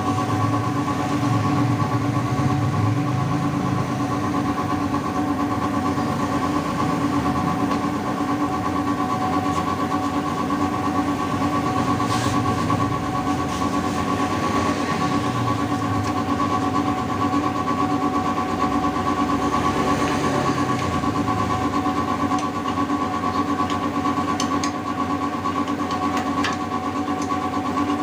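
A motor or engine running steadily at a constant speed, with a few faint clicks near the end.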